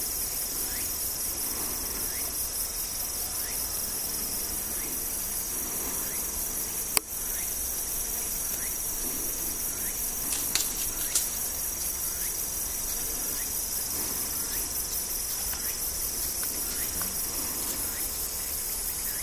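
A steady, high-pitched chorus of singing insects, finely pulsing without a break. A single sharp click stands out about seven seconds in, with two softer clicks a few seconds later.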